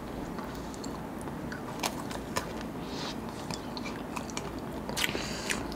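Close-miked biting and chewing of a chocolate-coated ice cream bar: soft, scattered crunching clicks as the coating breaks, with a few sharper crunches about two seconds in and near the end.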